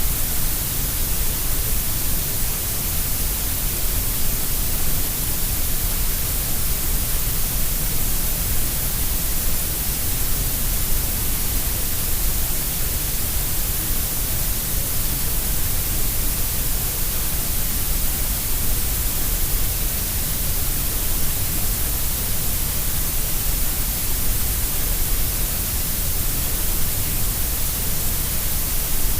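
Synthetic grey noise: a steady, unchanging hiss that is heavier in the deep lows and the highs than in the middle. It is shaped to sound equally loud at all pitches.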